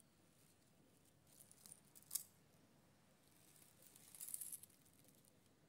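Faint crackling of dry leaf litter as a small tortoise crawls over it, with a single sharp click about two seconds in and a longer rustle around four seconds in.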